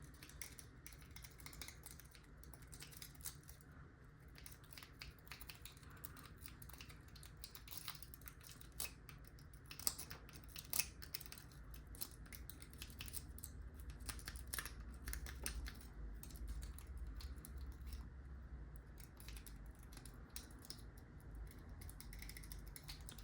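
Faint, irregular clicking and scratching of a metal lock pick and tension wrench working the pins inside a lock's keyway, with a few sharper clicks now and then.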